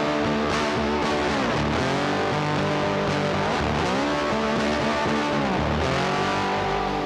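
Music led by guitar, its notes sliding in pitch in places.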